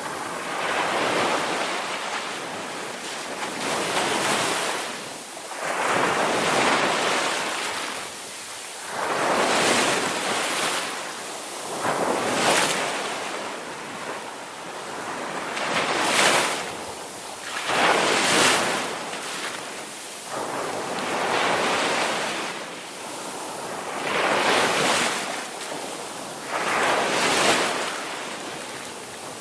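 Ocean waves breaking and washing onto a shore, a hissing surf that swells and ebbs every two to three seconds, with some wind noise.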